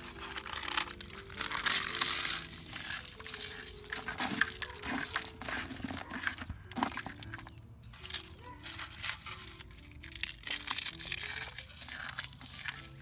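Eggshells crushed by hand in a plastic bucket: a rough, crackling crunch in uneven bursts. Quiet background music with a simple melody plays underneath.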